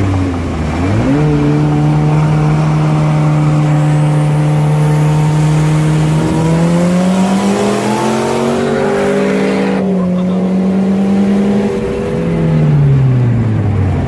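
Car engines at full throttle in a side-by-side street race, heard from inside one of the cars. The engine note jumps up about a second in, climbs again between about six and eight seconds, dips near ten seconds, and falls away over the last two seconds as the throttle comes off.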